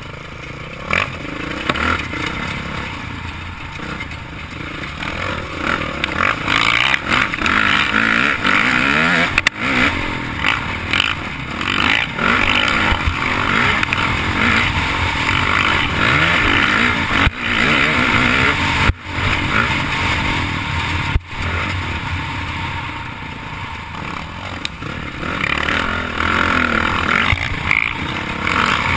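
Dirt bike engine close to the microphone, revving up and down over and over as the bike rides a rough dirt trail, with a few sharp knocks along the way.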